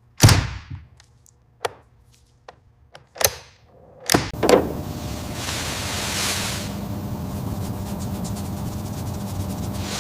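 Cinematic sound effects: a loud sudden swishing hit, then a few smaller clicks and swishes. About four seconds in, after two more hits, a steady rumble sets in and carries on, swelling briefly about two seconds later.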